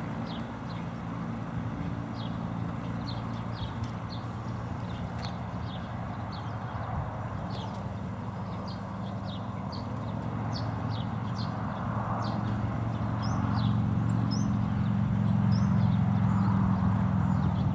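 A steady engine drone that grows louder over the second half, with small birds chirping throughout.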